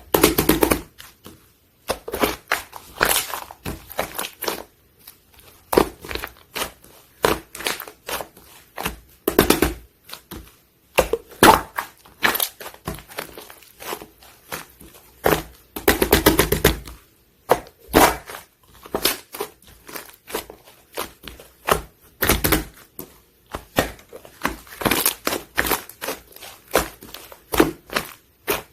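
Slime being squeezed, poked and stretched by hand: a run of sticky clicks and crackling pops from trapped air. Denser stretches of crackling come at the very start, around ten seconds in and around sixteen seconds in.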